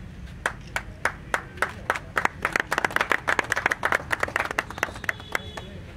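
A small group of people clapping: scattered claps begin about half a second in, build to dense applause in the middle, and thin out to single claps near the end.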